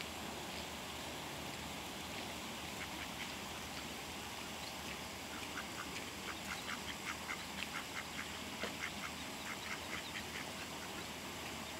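Mallard ducklings peeping: short high-pitched peeps, a few at first, then a quick run of several a second from about halfway through.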